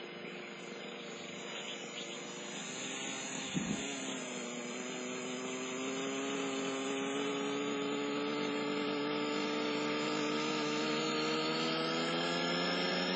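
SDX flybarless RC helicopter's glow engine and rotor running, the pitch rising slowly and steadily as it spools up, with a brief low knock about three and a half seconds in. It is carrying an abnormal noise that the owner traces to a cracked rotor.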